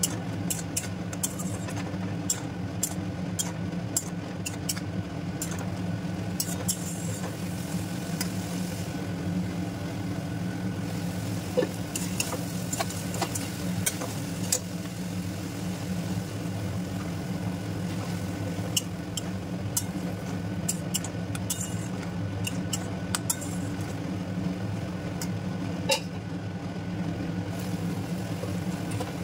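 A metal spatula scrapes and clicks against a steel wok as fish and potatoes are stir-fried in a thick spice paste, with a faint sizzle. Under it runs a steady low hum.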